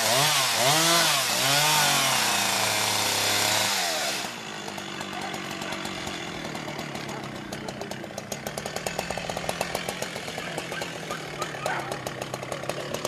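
Two-stroke chainsaw revved up and down about four times, its pitch rising and falling. About four seconds in it drops abruptly to a quieter, steady idle with a fast, even ticking.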